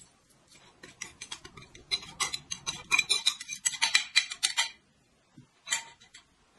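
Metal spoon scraping and tapping against a ceramic plate in a rapid run of sharp ticks as ground chili is scooped off it into the soup, then a brief clink near the end.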